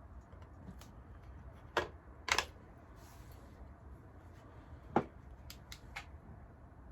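Small parts and tools being handled, giving a few separate light clicks and knocks, the sharpest about five seconds in.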